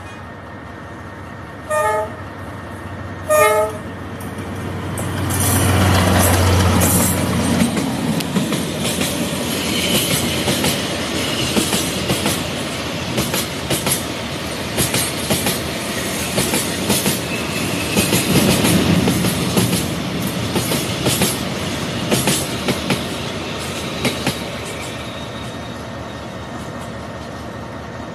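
A train horn toots twice briefly, then a train runs past with a low rumble and a dense clicking rattle of wheels on track. It is loudest about six seconds in and fades away near the end.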